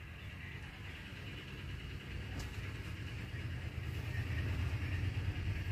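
A low, steady rumble with a faint hiss behind it, growing louder about two seconds in.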